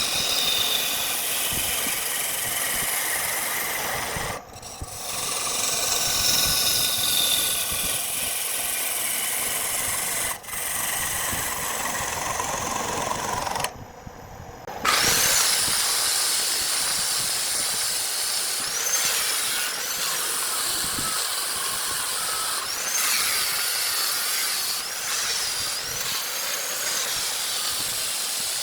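Power tools working wood, cutting and grinding with a steady hiss and rasp. The sound breaks off and changes abruptly several times, and in the second half a whine rises and falls every couple of seconds.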